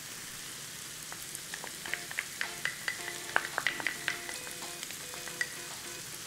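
Sausage and onions sizzling steadily in a frying pan. From about a second in, a utensil stirs the pan, knocking and scraping against it in a run of sharp clinks.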